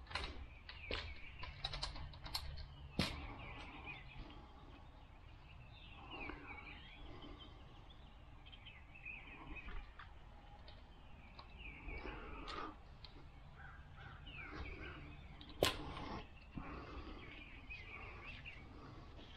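Birds chirping, with scattered clicks and knocks of parts and tools being handled, including two sharper knocks, about three seconds in and again about sixteen seconds in.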